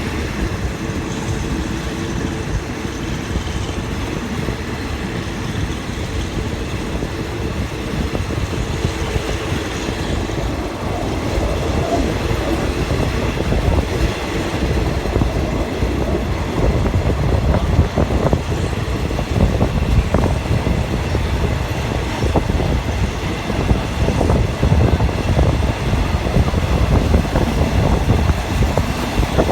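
Diesel-hauled passenger train running, heard from aboard a carriage: a steady rumble that grows louder from about a third of the way in as the train gathers speed, with wheel clicks over the rails in the second half.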